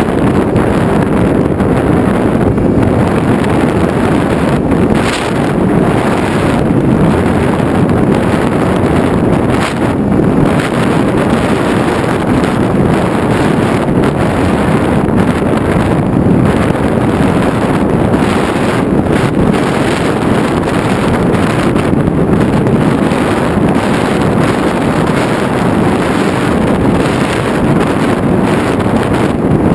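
Steady rush of wind over an FPV aircraft's onboard camera microphone in flight, with the aircraft's motor and propeller running steadily beneath it.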